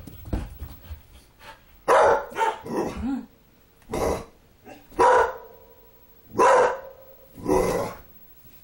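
Dog barking in short, sharp single barks about once a second, starting about two seconds in, in alarm at a doll that frightens her.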